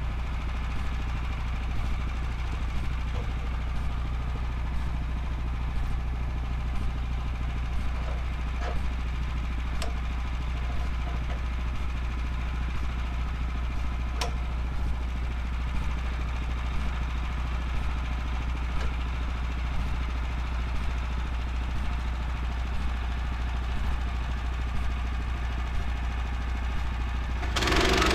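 Woodland Mills HM126 band sawmill's gas engine idling steadily, with a few light clicks as the log is handled on the bed. Near the end the engine speeds up and gets louder as it is throttled up.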